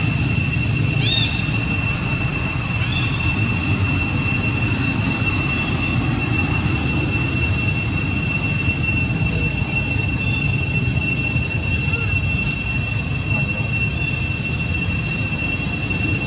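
A steady high-pitched insect drone over a dense low rumble, with a few short high chirps in the first few seconds.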